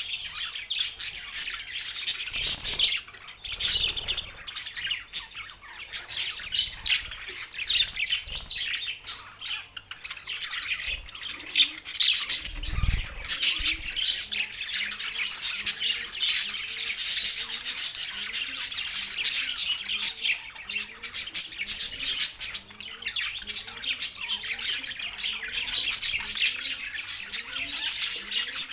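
Two male budgerigars chattering continuously in rapid chirps, warbles and squawks, with a few dull thumps.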